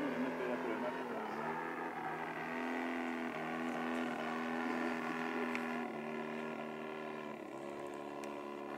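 Giant-scale RC Cessna 182's 85 cc four-stroke engine running in flight, a steady drone whose pitch dips slightly a few times.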